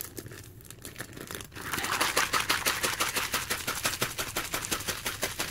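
A sealed plastic MRE beverage bag holding water with instant coffee, creamer and sugar is shaken hard to mix it. It makes a rapid, even rattle of strokes that starts about a second and a half in.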